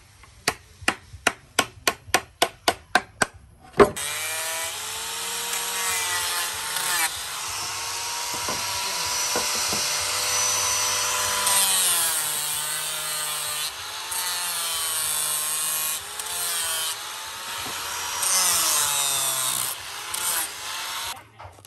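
A hatchet chopping the edge of a wooden board in quick, even strokes, about three or four a second. About four seconds in, an electric angle grinder with an abrasive disc starts and grinds the curved edge of the board, its pitch dipping and recovering as it is pressed into the wood, and cuts off near the end.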